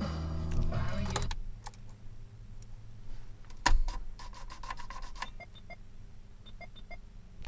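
Music cuts off about a second in, a single knock comes midway, then the 1988 Ford Ranger's warning chime sounds in short repeated beeps as the truck is shut off.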